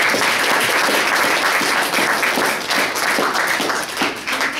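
Audience applauding: a roomful of people clapping together, dying away near the end.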